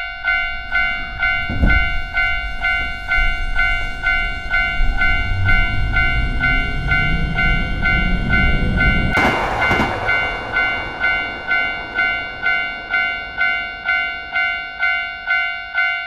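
Japanese railroad crossing warning bell dinging steadily, about two and a half strikes a second. A train passes over the crossing with a low rumble from about a second in, swelling to a loud rush around nine seconds in and then fading, while the bell keeps ringing.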